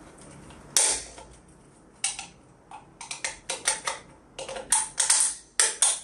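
Plastic clicks and taps of a wall light switch's plate and frame being pressed and snapped into place by hand: one sharp click about a second in, then a quick run of clicks through the second half.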